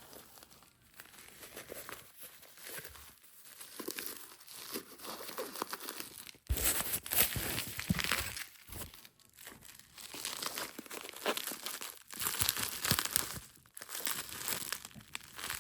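Packaging being unwrapped and handled: irregular crinkling and tearing of wrapping, louder in stretches from about six seconds in.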